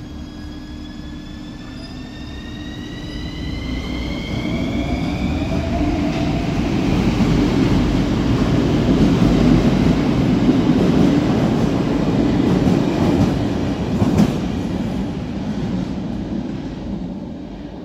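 Metro train pulling out of an underground station. Its traction motors whine, rising in pitch as it accelerates over the first few seconds, then the running noise of wheels on rail builds, loudest in the middle, with one sharp click about fourteen seconds in, and fades as the train leaves.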